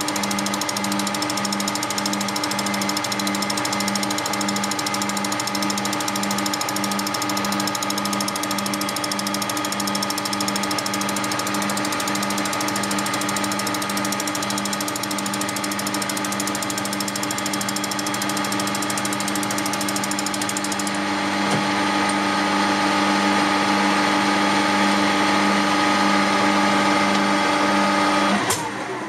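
Metal-turning lathe running steadily while turning down a small drilling jig held between chuck and tailstock centre: a whine of motor and gearing over a low hum that pulses about one and a half times a second. Near the end the lathe is switched off and winds down.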